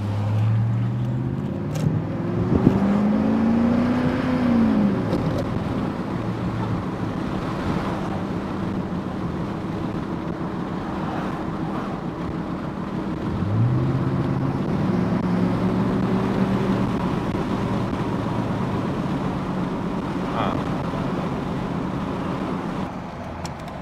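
Chevrolet Silverado pickup engine heard from inside the cab with the windows down, pulling under acceleration. Its pitch rises, drops at a gear change, then rises again and holds steady at cruise over road noise. The driver hears what he calls a little valve clatter or pinging, a hint of spark knock under load.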